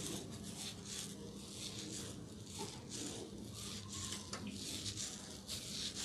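Hands massaging an oiled scalp and hair: soft, wet rubbing strokes repeating about two to three times a second.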